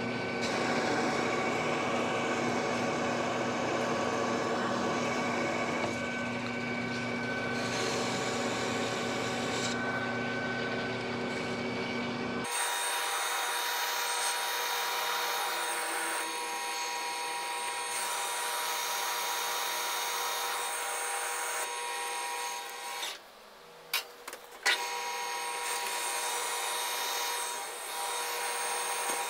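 A Precision Matthews metal lathe turns a lead-screw shaft with a carbide insert: a steady machine whine with the hiss of the cut. Partway through, the low hum drops away and the whine shifts abruptly. Near the end there is a short break.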